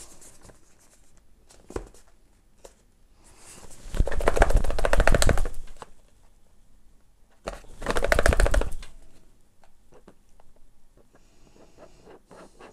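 A cardboard retail box being slid out of its cardboard sleeve: two loud scrapes of cardboard on cardboard, each a little over a second long, the first about four seconds in and the second a couple of seconds later. Small taps and rustles of handling come in between.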